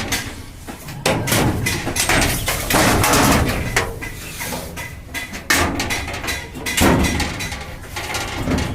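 Irregular hammer knocks and clangs on sheet steel, the metalwork of a steel almirah.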